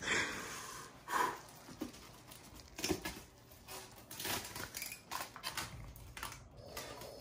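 Styrofoam shipping box being opened: the foam lid is pulled off and handled, giving a string of short scrapes and light knocks of foam against foam.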